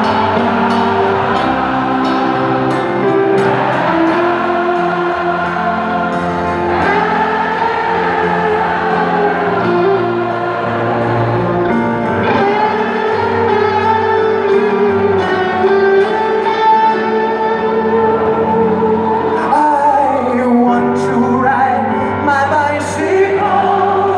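Live rock concert music heard through an arena's reverberation: long held singing in layered harmony over sustained instruments, with no clear words.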